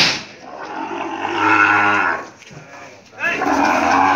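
Brahman cattle mooing loudly twice: a long, drawn-out call of about a second and a half, then a second call starting about three seconds in.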